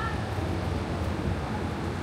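Street ambience: a steady low rumble of passing traffic, with a brief high-pitched squeak right at the start.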